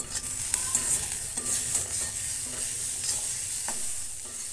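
Grated carrot, onion and aromatics sizzling in oil in a metal kadai while a spatula stirs and scrapes through them, with a few short clicks of the spatula against the pan, the sharpest right at the start.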